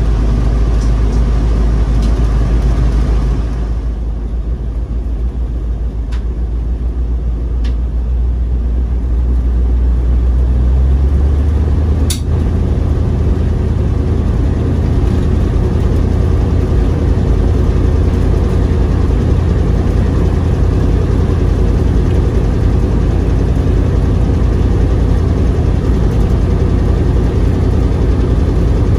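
Engine and road noise heard inside a moving car: a steady low rumble whose deepest hum shifts up in pitch about eleven seconds in. A single sharp click sounds about twelve seconds in.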